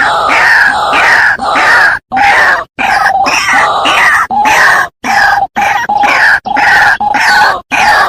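White-breasted waterhen (ruak-ruak) calling: a fast run of harsh, croaking calls repeated about two to three times a second. The run is broken by several abrupt short dropouts, as in a looped lure-call recording.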